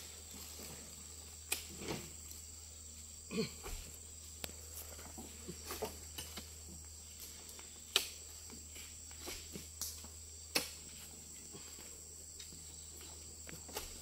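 Steady high-pitched insect drone, with scattered sharp knocks and thuds as oil palm fruit bunches are handled and loaded onto a truck; the loudest knocks come about 8 and 10.5 seconds in.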